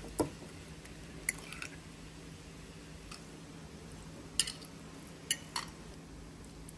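Kitchen utensils clinking and tapping against dishes: about five sharp, separate clinks spread over several seconds, some with a short ring, over a faint steady hum.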